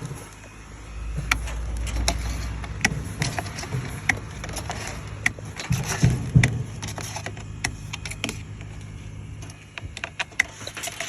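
Vinyl siding crimp tool (snap-lock punch) clicking as it punches lugs into the cut edge of a ripped vinyl siding panel: a string of sharp, irregular clicks. A low rumble sits under it for a couple of seconds about a second in.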